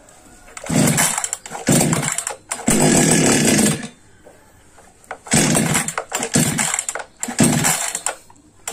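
Preco petrol chainsaw's small two-stroke engine firing in about eight short bursts, each a second or less, dropping away between them as it is being started.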